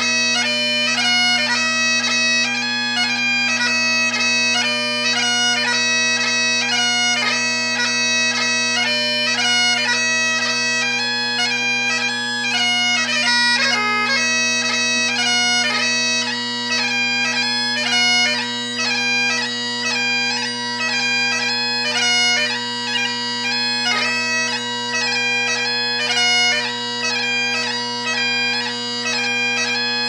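Great Highland bagpipe played solo: the drones hold a steady low chord beneath the chanter's fast-moving melody of short notes.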